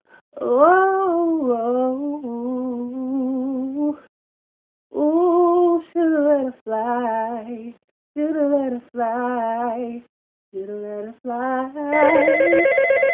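A solo, unaccompanied voice singing held, wavering notes in short phrases with pauses between them. Near the end a telephone starts ringing over it and becomes the loudest sound.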